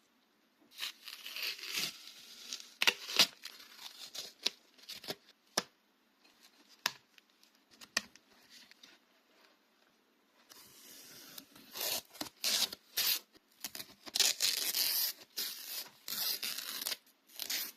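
Packaging being torn open and crinkled by hand, in rustling bursts with a few sharp clicks. A longer stretch of dense tearing and crinkling starts about ten seconds in.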